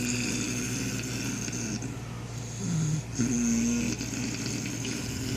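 Snoring: drawn-out, pitched snores, one trailing off about two seconds in and another from about three to four seconds in.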